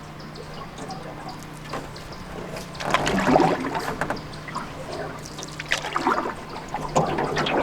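Water sloshing and splashing in short bursts, about three seconds in and again near the end.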